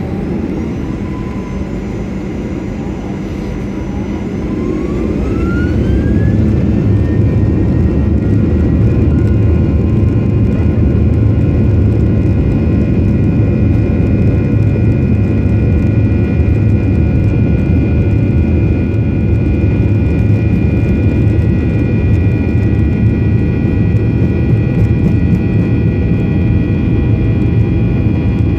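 An airliner's jet engines, heard from inside the cabin, spooling up to takeoff thrust. A whine rises in pitch and the rumble grows louder about four to six seconds in, then holds steady and loud.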